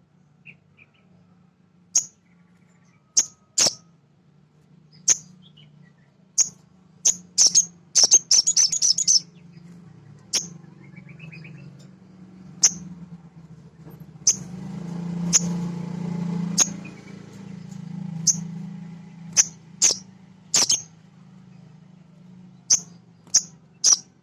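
Male little spiderhunter (sogok ontong) calling: sharp, high single chirps about a second apart, with a quick rapid run of chirps about eight seconds in. A low steady hum runs underneath.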